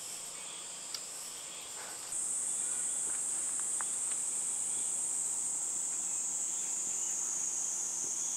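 Steady high-pitched insect chorus, stepping up in level about two seconds in.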